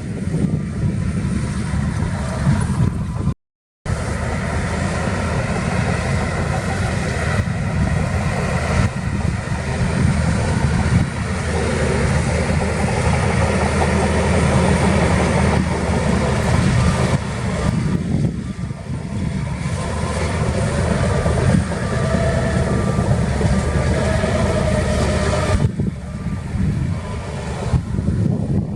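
Heavy diesel earthmoving machinery, a bulldozer and dump trucks, running steadily under load. The sound cuts out completely for a moment about three and a half seconds in.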